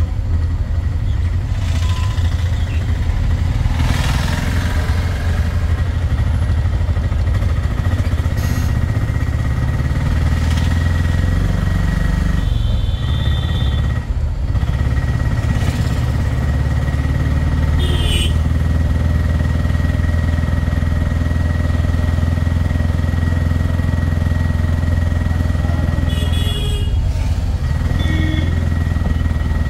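Motorcycle engine running steadily at cruising speed, a constant low drone. Three brief high-pitched beeps sound over it, once a little before halfway and twice in the later part.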